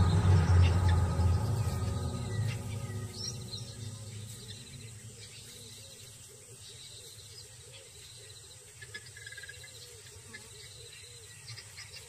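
Bush ambience of insects trilling, with frogs calling in a steady rhythm of about two calls a second. A low rumble is loudest at the start and fades away over the first few seconds.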